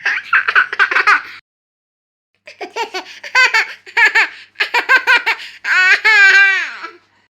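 Baby laughing in bursts of rapid giggles, with a complete break about a second and a half in; near the end a longer high laugh slides down in pitch.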